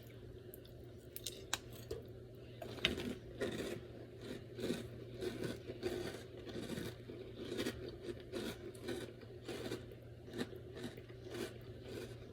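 A person chewing a mouthful of Fruity Pebbles Crunch'd cereal: a steady run of quick crunches, about two to three a second, starting about three seconds in.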